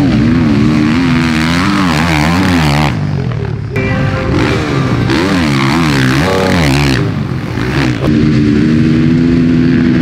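KTM 450 SX-F four-stroke single-cylinder motocross bike revving hard, its pitch climbing and dropping repeatedly as the throttle is opened and shut through the gears. The sound breaks off and changes abruptly a few times.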